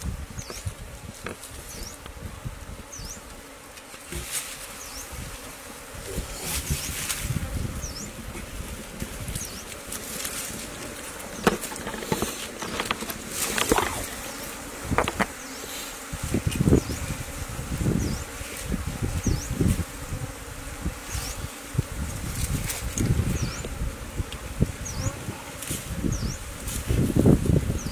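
Honeybees buzzing around their opened nest, a steady hum, over irregular rustling of leaves and grass and sharp clicks and scrapes as the wax comb is cut and handled.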